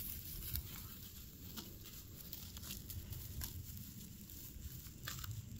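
Faint rustling in dry grass with a few soft, scattered clicks.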